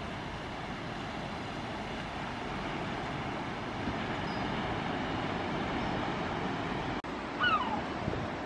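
Sea surf washing steadily against the beach and pier. Near the end a gull gives one falling cry.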